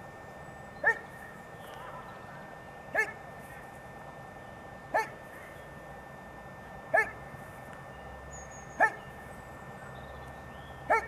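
A dog barking: single barks, evenly spaced about two seconds apart, six in all.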